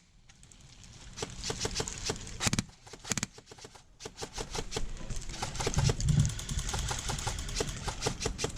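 Rapid clicking and clattering of airsoft guns firing, thickening from about a second in, with a low rumble that swells in the middle.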